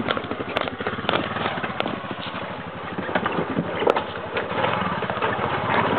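Honda Foreman ATV's single-cylinder four-stroke engine running at a low, even putter as it crawls down a rock ledge, with a few sharp clicks and knocks of tyres and stones on rock.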